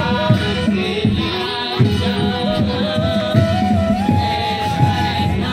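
Devotional procession music: singing over drums and small hand cymbals, with a melody that moves up in steps and is held near the end.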